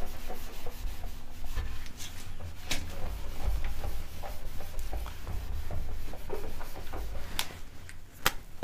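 A whiteboard eraser rubbing across the board in irregular strokes, wiping off marker writing. Near the end come two sharp clicks as a marker is handled.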